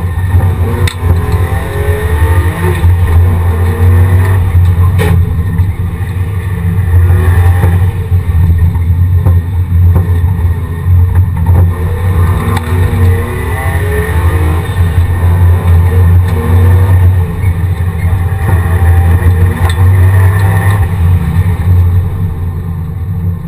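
Race car engine revving up and down again and again under hard driving, heard from inside the stripped, roll-caged cabin.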